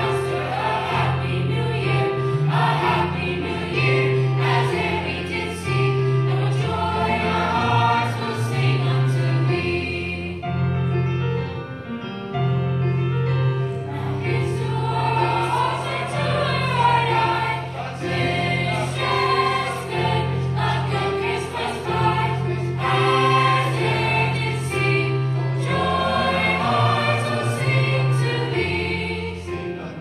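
A school chorus singing a winter choral piece in parts, over an accompaniment of sustained low bass notes that change with each chord.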